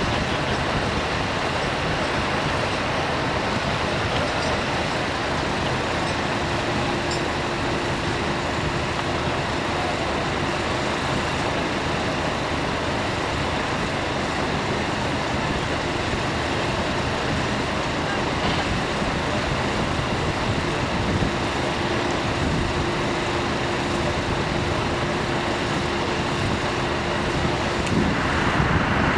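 Steady noise of running vehicle engines, with a faint steady hum that comes and goes.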